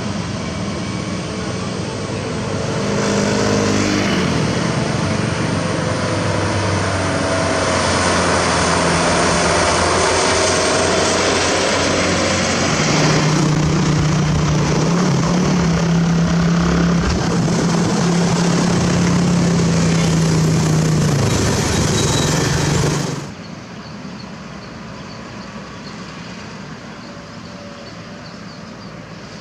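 Heavy diesel truck engine running under load as a self-loader truck hauling an excavator drives a winding road, the engine note holding steady for several seconds in the middle. About 23 seconds in the sound drops suddenly to quieter truck engine noise as another loaded truck approaches.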